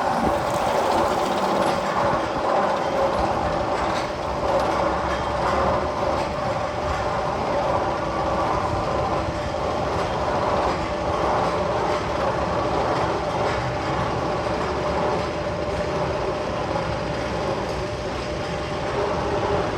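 Steady, rail-like rumbling with a held hum, one of the sound effects played over the speakers in the Magnum XL 200 roller coaster's tunnel.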